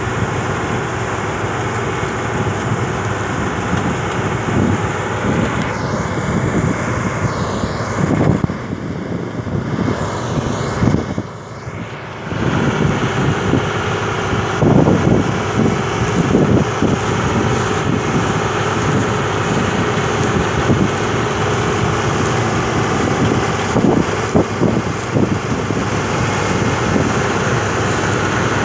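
1976 New Holland 1530 combine harvester running while harvesting grain: a steady mechanical din of engine and threshing machinery with a steady hum, dipping briefly about eleven seconds in. Wind buffets the microphone at times.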